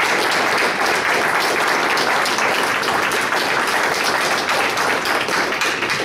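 Audience applauding steadily, dense clapping from many hands at the close of a speech, easing slightly near the end.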